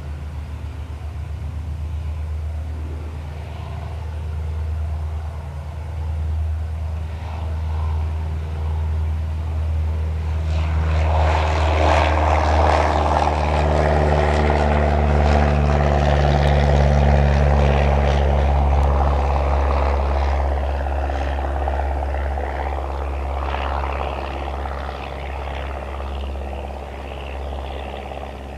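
Cessna 172N Skyhawk's four-cylinder Lycoming engine and propeller. The engine runs at low power at first. About ten seconds in it opens up to full power for the take-off roll, loudest in the middle and fading as the plane pulls away.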